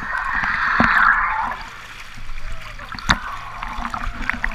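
Choppy wave-river water rushing and splashing right at a camera riding on the surface, loudest in the first second and a half. Two sharp knocks come through, one near the start and one about three seconds in.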